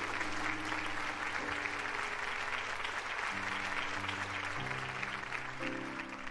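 Audience applauding over music made of sustained low chords that change every second or so.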